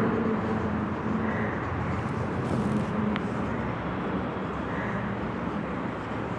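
Steady background noise, a low rumble with hiss, with a single short click about three seconds in.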